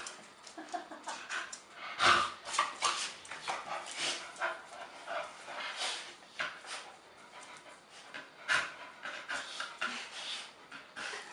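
Dogs panting in quick, irregular breaths, with louder moments about two seconds in and again near the end.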